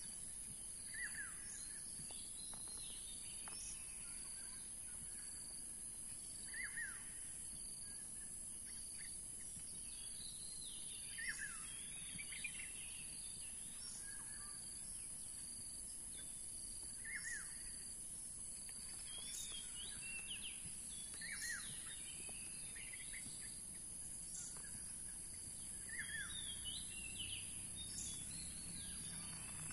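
Birds calling: a short falling chirp repeats roughly every five seconds, with clusters of higher chirps in between, over a steady high-pitched insect drone.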